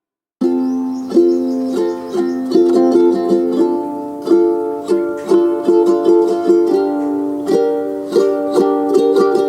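Background music that starts about half a second in: a bright strummed and plucked ukulele-style tune with a steady beat.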